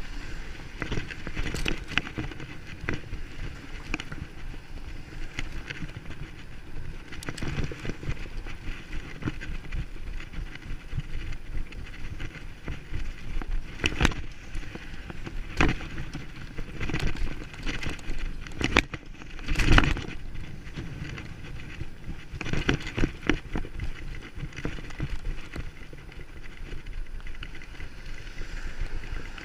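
Bicycle ridden over rough ground: continuous rolling noise with frequent knocks and bumps, the heaviest about two-thirds of the way through.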